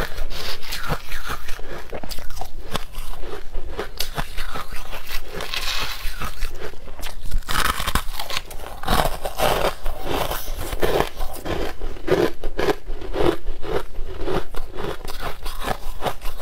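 Crushed purple ice being bitten and chewed close to a clip-on microphone: a steady run of crisp, irregular crunches and crackles.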